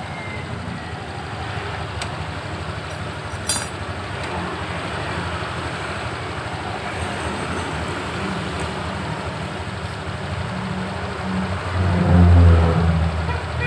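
Honda Scoopy scooter's single-cylinder engine idling steadily, with one sharp click about three and a half seconds in. The engine note swells louder briefly near the end.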